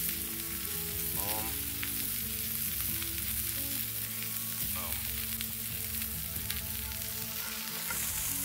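Burger patties sizzling steadily in a cast-iron skillet over a campfire.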